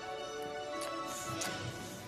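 Background music with held notes, and a couple of faint short ticks about a second in.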